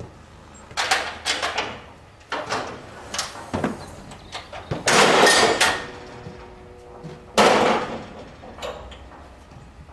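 Metal chequer-plate folding deck of a livestock trailer being unlatched and folded up: a run of metallic clanks and rattles, with two loud clattering crashes about five and seven and a half seconds in, the first leaving a brief ringing.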